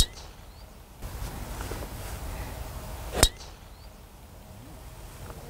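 Golf driver striking a ball off the tee: a sharp crack right at the start, then the same kind of crack again about three seconds later, over a low outdoor hush.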